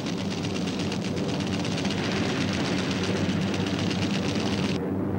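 Heavy bomber's piston engines droning steadily with a fast, even beat.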